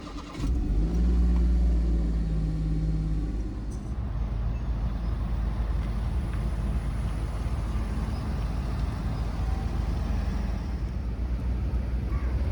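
Car engine and road noise heard from inside the cabin: a steady low rumble that comes in about half a second in, with a steady engine hum over it for the first few seconds.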